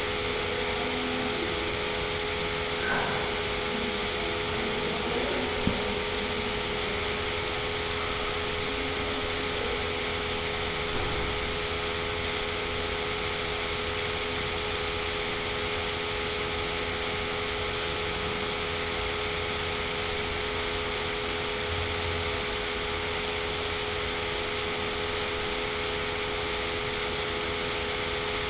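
Steady fan-like hiss with a constant low hum, and one faint click about six seconds in.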